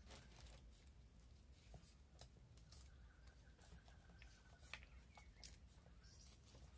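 Fresh green bean pods being split and shelled by hand: faint scattered snaps, rustles and light clicks of shelled beans against a plastic bowl.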